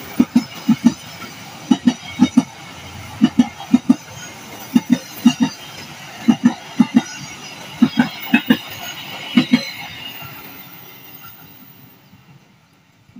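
Wheels of a passing Pasundan passenger train's economy coaches clacking over rail joints: groups of two or three sharp knocks about every second and a half over a steady running rumble, fading away from about ten seconds in as the last coaches pass.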